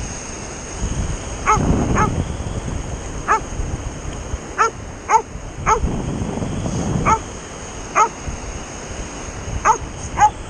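A dog barking about ten times, in short separate barks at an uneven pace, over a steady low background rush.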